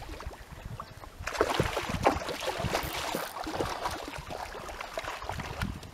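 A hooked carp thrashing at the surface in the shallows, splashing and slapping the water as it is drawn in to the bank. The splashing sets in about a second in, is heaviest soon after, and dies away toward the end.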